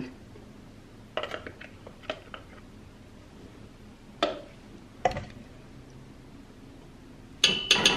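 Metal measuring spoon tapping and clinking against a stainless steel pot while spooning in ground cinnamon: several light taps about a second apart, then a louder ringing clink near the end.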